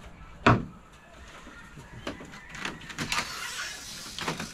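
A single sharp knock about half a second in, then a run of creaks and clicks from a split-bamboo slat floor as a husky puppy moves about on it.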